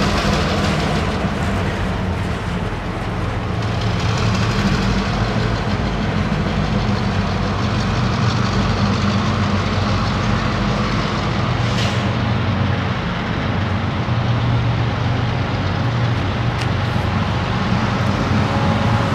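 Freight train rumbling out of view with a steady diesel engine drone.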